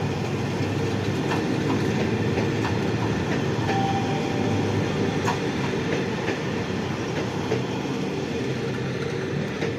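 Passenger coaches of a departing train rolling slowly past: a steady rumble of steel wheels on rail, broken by irregular clicks as the wheels cross rail joints. A brief thin tone rings out about four seconds in.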